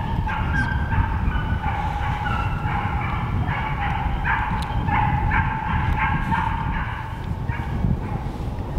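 Hunting dogs baying as they work the drive: a run of high, yelping barks, one after another, stopping about eight seconds in, over a low rumble.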